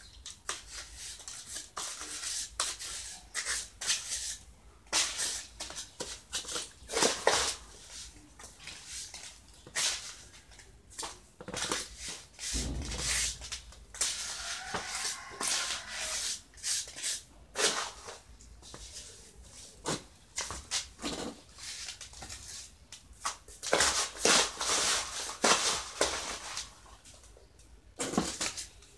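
Steel trowel scraping and patting wet cement mortar onto a wire-mesh form, in irregular strokes and scrapes.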